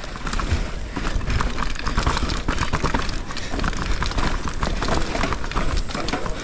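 Downhill mountain bike ridden fast down a rooty dirt track: a dense, irregular clatter of the bike rattling over roots and bumps, over a steady low rumble of tyres and wind on the microphone.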